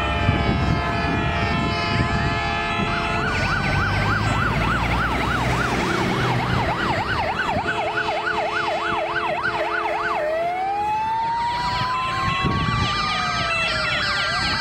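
Sirens of several fire engines sounding together as the trucks drive past. A fast yelp warbles about four times a second, then gives way about ten seconds in to a slow wail that rises over several seconds and drops near the end. Steady siren tones and the low rumble of the trucks' engines run underneath.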